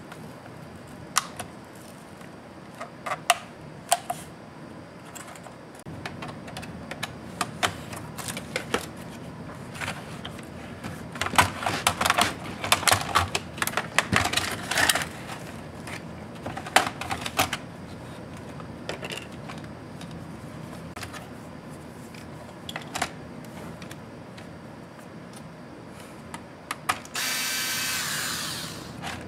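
Scattered clicks, taps and snaps of small tools and plastic laptop parts being pried and handled, busiest in the middle. Near the end an electric screwdriver runs with a steady whine for about two seconds.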